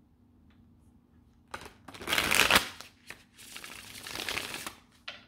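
A deck of tarot cards shuffled by hand: a short burst about a second and a half in, then two spells of rustling, slapping shuffles, the loudest about two seconds in and a longer one from about three and a half seconds in, with a few single card clicks between.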